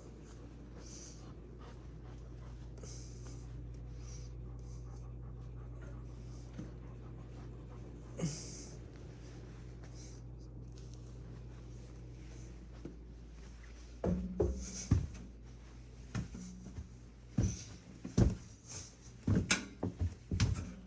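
Footsteps going down stairs, a run of thumps about one a second that starts about fourteen seconds in, over a steady low hum. A person's breathing is heard faintly throughout.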